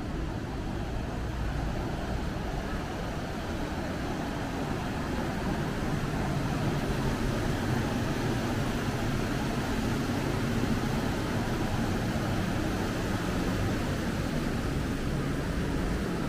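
Steady street traffic noise that swells slightly in the middle.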